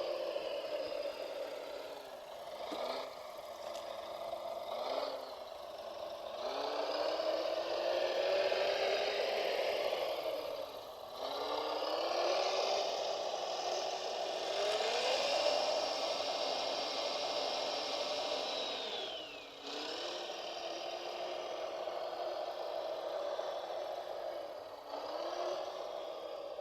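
Radio-controlled model vehicle's electric motor and gears whining with rattling clatter. The pitch dips several times as it slows or stops, then glides back up as it speeds up again.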